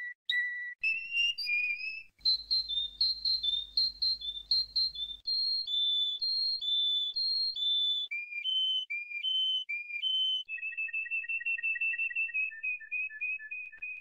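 Male canary singing a long stanza of clear whistled tours. It gives a rapid run of repeated notes, then slower alternating two-note phrases, and near the end a fast trill of short, evenly repeated notes.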